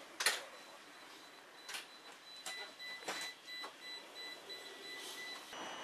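Vienna tram interior at a standstill: a few sharp clicks and knocks, then a fast pulsing electronic beep for about three seconds. Near the end the beep stops and a steady motor whine with rising running noise sets in as the tram starts off.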